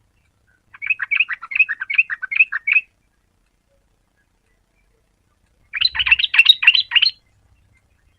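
Yellow-vented bulbul singing: two bursts of rapid, bubbly chirping notes, the first about two seconds long, the second about a second and a half later on, with a pause between.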